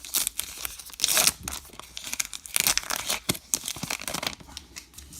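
Baseball card pack wrapper being torn open and crinkled, in a series of short rips and crackles.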